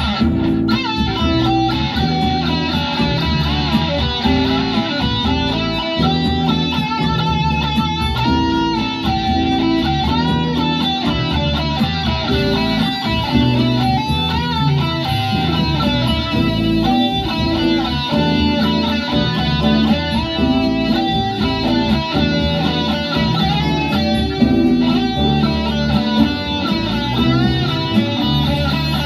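Electric guitar, a sunburst Les Paul-style solid body, played through an amplifier: a continuous melodic line with bent, wavering notes over a full, steady low end.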